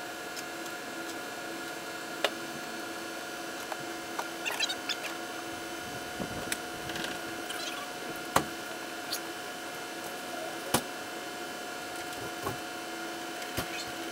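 Motor oil pouring from a plastic jug through a funnel into the engine's oil filler, refilling the crankcase during an oil change, with short glugs and a few sharp clicks over a steady background hum.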